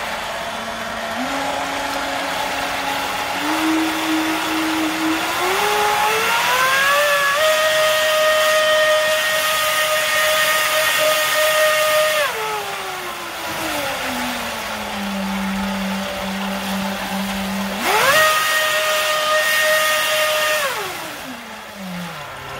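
3D-printed RC jetboat's electric motor and water-jet pump run while the boat is held still, with a whine that climbs in steps to full power, holds, drops back to a low pitch, then jumps straight to full power for a few seconds and winds down near the end. A spray hiss from the jet churning the water rises and falls with it.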